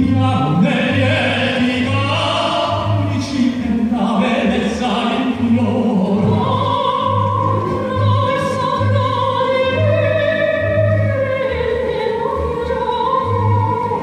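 Pop-opera duet: a male singer carries a low, classically sung line for the first half, then a female soprano takes over with a higher, sustained line. The accompaniment has a pulsing bass.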